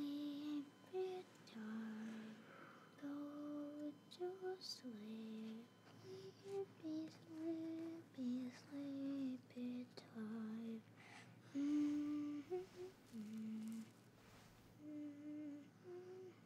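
A single voice humming a slow, gentle lullaby-like melody, each note held about half a second, in short phrases with brief pauses between them.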